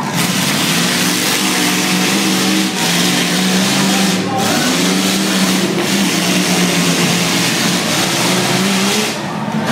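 Several V8 demolition derby car engines running loud together, revving as the cars push against one another.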